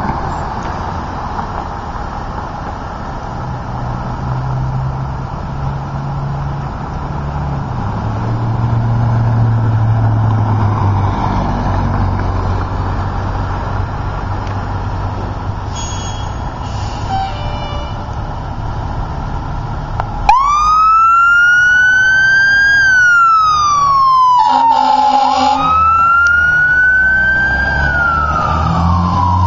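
Fire engine's diesel engine running steadily as the truck pulls out. About twenty seconds in its siren comes on, rising and then slowly falling in a wail that repeats, with a short horn blast in the middle.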